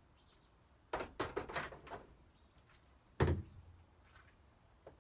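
Steel IKEA Skorva bed rails knocking and clanking as they are handled and set down on the cargo van's metal floor: a few sharp knocks about a second in, a heavier thunk about three seconds in, and another knock near the end.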